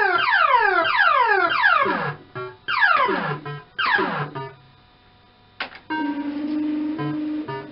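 Electronic sound effects from a Bar-X fruit machine: a run of falling, plucked-sounding tone sweeps, about seven in four and a half seconds. A click follows a little after five seconds, then a steady low electronic tone with short beeps as the reels spin.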